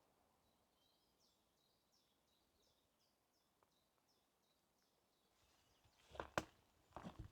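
A small bird singing faintly: a run of short, high, evenly repeated notes, about three a second, lasting several seconds. Near the end, footsteps on the forest path come in as a few sharp steps.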